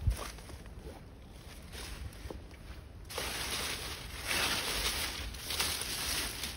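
Cucumber leaves and vines rustling as they are brushed and handled. The rustling grows louder and rises and falls from about three seconds in, after a single low thump right at the start.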